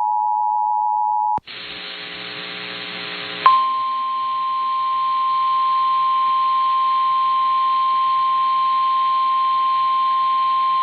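The end of an Emergency Alert System two-tone attention signal, cut off by a click about a second and a half in. About two seconds of radio hiss follow, then a single steady pure tone, the NOAA Weather Radio warning alarm tone, which sounds for the rest.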